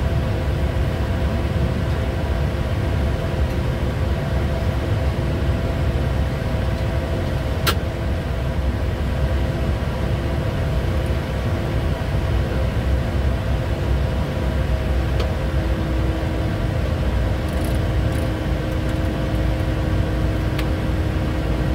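Steady cockpit noise of a Bombardier Challenger 350 business jet on approach: a low rush of airflow with a faint hum of several steady tones under it. A single sharp click comes about eight seconds in.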